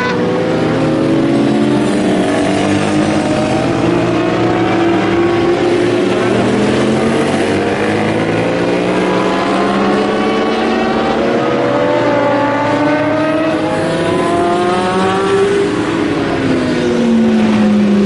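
Racing motorcycles on track, several engines heard at once, each rising steadily in pitch as it accelerates through the gears, with one falling away near the end as a bike passes.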